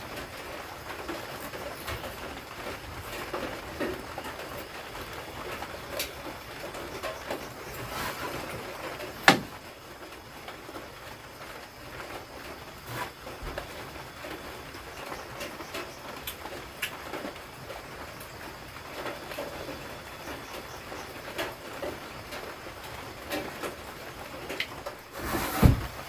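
Steady patter of light drizzle on a leaf-thatched hut roof, with a sharp knock about nine seconds in and another near the end.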